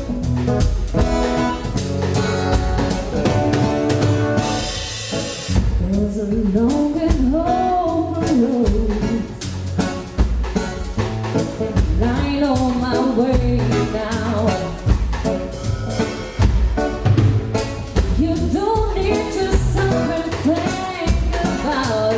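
A live band playing a song at a sound check: drum kit keeping a steady beat under bass and keyboards, with a lead melody line, most likely sung, coming in about six seconds in. A short bright hissing wash, like a cymbal, sounds about four seconds in.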